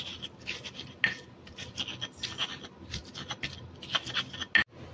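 Stone pestle crushing and grinding fried shallots, garlic and candlenuts in a stone mortar: a quick, irregular run of short scraping, crunching strokes, about two a second.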